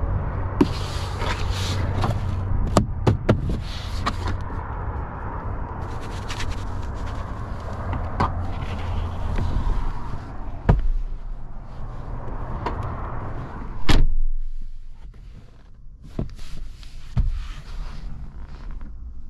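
Clicks, knocks and rattles from a vehicle's doors and fittings being worked by hand, over a steady low rumble. A loud thud about 14 seconds in, like a door shutting, after which the background noise drops away.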